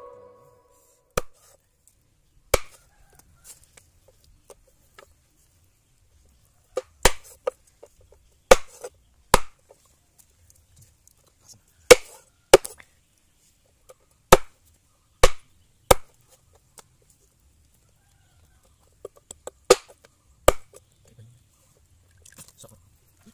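A large knife chopping through monitor lizard meat and bone onto a wooden board: a series of single sharp chops at irregular intervals, some in quick pairs, with quiet between them.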